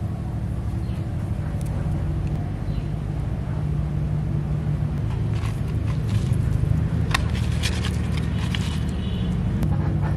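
Steady low hum of a running motor, with a few short sharp clicks between about five and nine seconds in.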